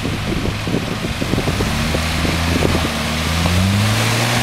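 Four-wheel-drive truck engines running under load, revving higher through the second half, as a truck stuck in mud is pulled out on a tow strap. Short irregular knocks and crackles run through the first half.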